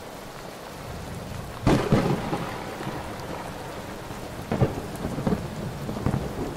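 Heavy rain falling steadily, with two loud rumbles of thunder: one about a second and a half in and another about four and a half seconds in.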